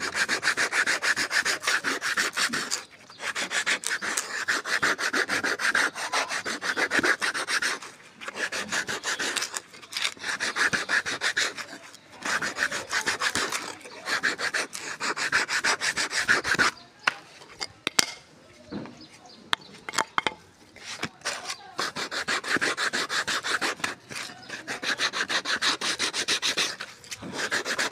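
Sandpaper wrapped on a wooden block rubbed rapidly back and forth against the edge of a homemade sanding disc. The sound is a rasping scrape in runs of a few seconds, broken by short pauses, with a longer break of scattered clicks about two-thirds of the way through.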